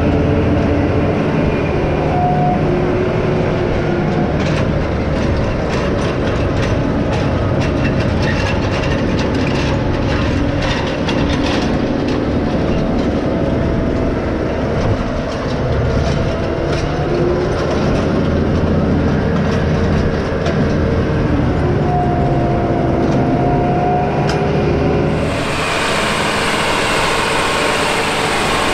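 John Deere 9RX 640 track tractor's Cummins QSX15 diesel engine running steadily while pulling tillage, with the hitched Case IH 330 Tru Tandem Turbo vertical tillage tool and rolling harrow rattling and clanking behind it, full of sharp clicks. About 25 seconds in the sound changes to the tractor heard from the field as it passes.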